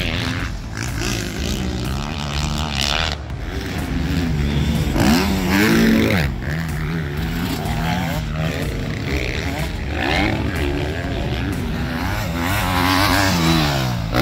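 Motocross dirt-bike engines revving up and down with the throttle, rising and falling in pitch again and again as the bikes ride the track and its jumps. The strongest rise and fall comes about five seconds in, and another comes near the end.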